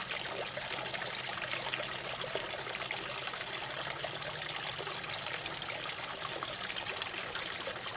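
Small waterfall of running water, trickling and splashing steadily.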